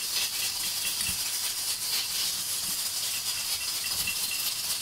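Steady hiss of a gas stove burner's open flame.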